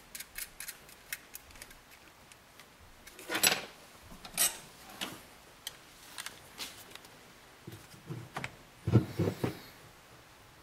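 Small metal clicks and taps of a steel mounting bracket, a nut and bolt and a Phillips screwdriver being worked against an HID ballast's metal case on a wooden workbench. A few louder knocks stand out, with a quick cluster of low knocks against the bench near the end.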